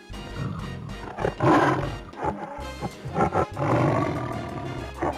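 A big cat's roar, used as a sound effect for the jaguar: two long, hoarse roars, the first about a second in and the second about three and a half seconds in, over background music.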